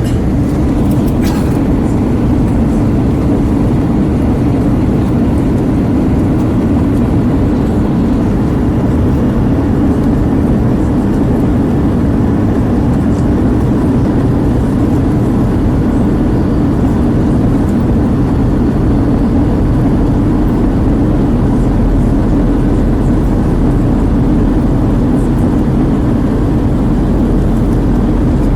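Airbus A320 cabin noise in flight: a steady, even rush of engine and airflow noise with a faint steady tone running through it.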